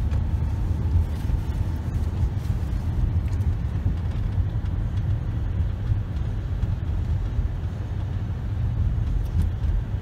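Steady low rumble of a car driving, heard from inside the cabin: engine and road noise with no distinct events.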